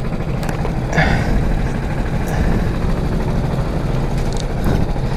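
Go-kart engine running steadily at low revs from the driver's seat, with a few light clicks and knocks over it.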